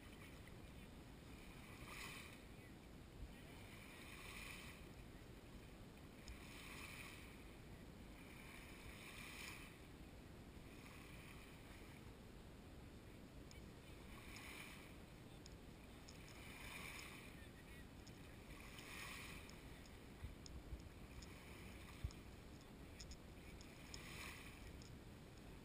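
Small waves lapping faintly on a sand beach, a soft wash returning about every two and a half seconds, over a low steady rumble of wind.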